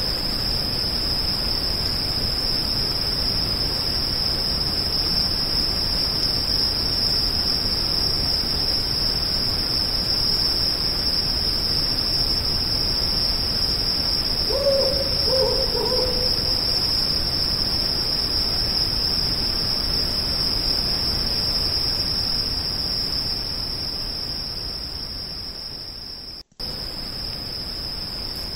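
A steady high-pitched insect trill over a constant background hiss, with a short run of three or four owl hoots about halfway through. Everything cuts out for a moment near the end.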